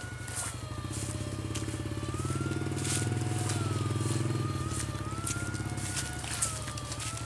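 Electrofishing backpack unit buzzing while its electrode pole is swept through the water, with scattered crackling clicks. The buzz swells louder in the middle, and a faint whine rises and falls every couple of seconds.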